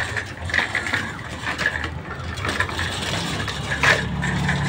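Child's small bicycle with training wheels being ridden fast over rough concrete and stones, rattling and clicking irregularly, with one sharper knock about four seconds in.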